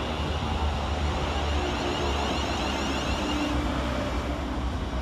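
Class 350 Desiro electric multiple unit running along the platform: a steady low rumble of its wheels on the rails as the coaches pass.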